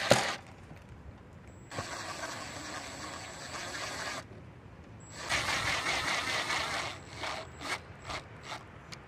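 Cordless drill driving screws into wood: one run of about two and a half seconds, a pause, a louder run of about a second and a half, then several short trigger bursts as the screw is seated. A sharp click comes right at the start.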